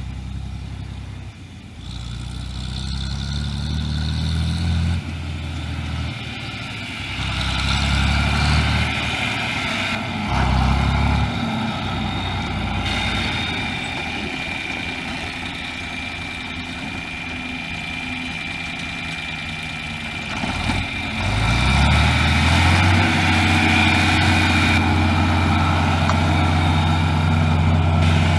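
John Deere 4020 tractor's six-cylinder diesel engine running as the tractor is driven, its note rising and falling over the first dozen seconds. It gets louder and holds steady for the last quarter.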